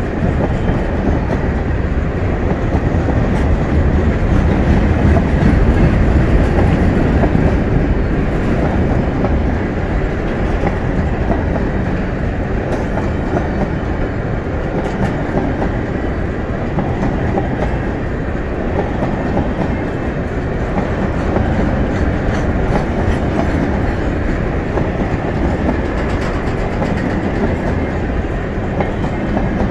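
Freight train of tank cars and covered grain hopper cars rolling past close by. The wheels on the rails make a steady rumble, with occasional ticks and clacks.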